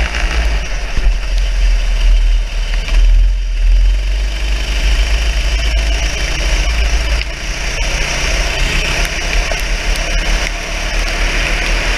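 Go-kart engine running steadily under load, with a deep rumble from wind buffeting the onboard microphone.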